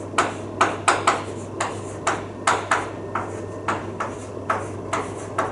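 Chalk writing on a blackboard: a quick, irregular series of sharp taps and short scratchy strokes, about three a second.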